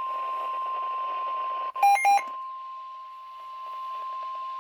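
NOAA Weather Radio 1050 Hz warning alarm tone: one steady, loud tone over a steady hiss, signalling that a warning broadcast is about to follow. About two seconds in, two short, loud beeps cut across it.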